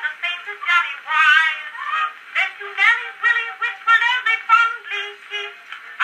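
Acoustic-era Edison Gold Moulded wax cylinder recording of a woman singing a comic song with orchestra accompaniment. The sound is thin with no bass, and she holds one note with vibrato about a second in.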